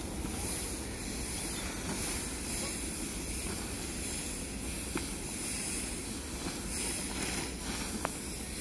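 Large iron cauldron of water boiling hard over a wood fire, giving a steady hiss of boiling and steam. Two faint knocks come about five and eight seconds in.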